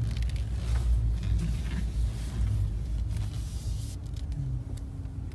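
Low, steady rumble of a car heard from inside its cabin.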